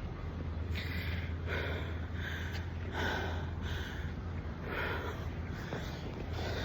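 Heavy, hard breathing of a woman walking uphill, about one breath a second: she is out of breath from the climb.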